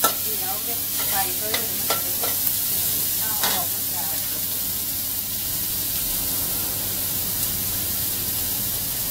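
Pork and mild green chilies sizzling in a steel wok over a gas flame. A few clinks and scrapes of the metal spatula against the wok come in the first few seconds, then a steady sizzle.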